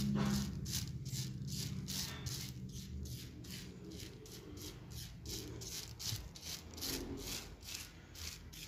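Tint brush stroking bleach paste onto hair strands pulled through a plastic supermarket-bag cap: a rubbing rustle of bristles on wet hair and plastic, about two or three strokes a second.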